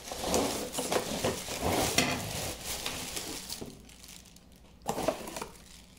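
A plastic bag crinkles and cardboard scrapes as a bagged tripod is slid out of a long cardboard shipping box. The sound is busiest for the first three and a half seconds, then drops away, with a shorter rustle about five seconds in.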